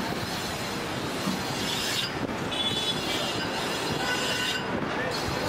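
Steady noise of a busy street, with thin high-pitched squeals about two and a half seconds in and again near the end.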